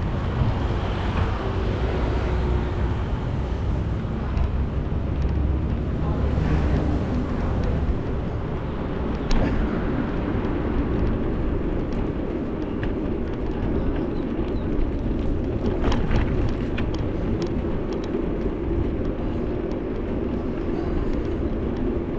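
Steady wind and road noise from a moving bike, a constant low rumble with a few sharp clicks.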